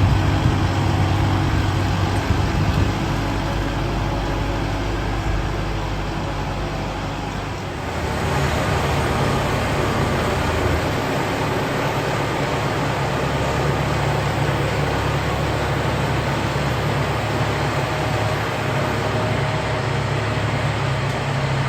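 Diesel tractor engine running steadily, with a broad rushing noise that rises about eight seconds in and a shift in the engine's low hum a few seconds later.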